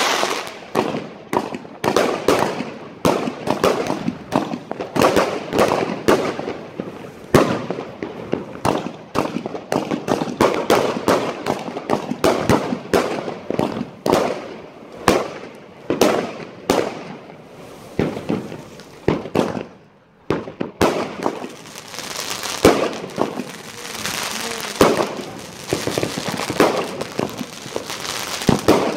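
Fireworks going off in a dense barrage of bangs and pops, several a second. About two-thirds of the way through they ease off briefly, then come back as a thicker crackle with more bangs.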